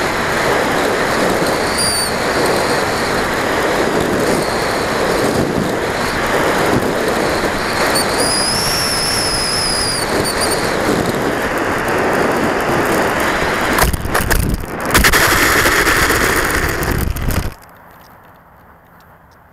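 Wind rushing over an RC sailplane and its onboard camera in flight, with a thin high whistle that comes briefly twice. About 14 s in the glider touches down with a few sharp knocks, then slides scraping across asphalt, and the noise cuts off suddenly as it stops.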